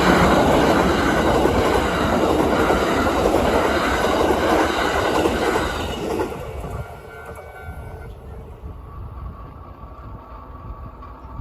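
A train running past at close range, loud for about six seconds, then fading as it moves away.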